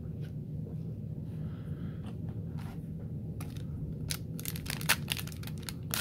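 Foil wrapper of a hockey card pack crinkling and tearing as it is pulled open: a few faint handling clicks, then from about three and a half seconds in a quick run of sharp crackles, over a low steady hum.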